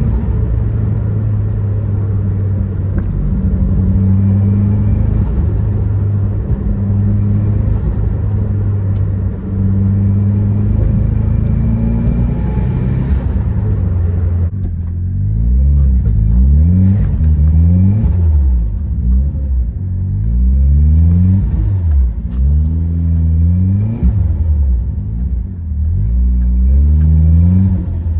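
Turbocharged Mitsubishi Lancer VRX 2.4-litre engine driving along at a steady pitch for about fourteen seconds. It then accelerates again and again, its pitch rising and dropping back several times.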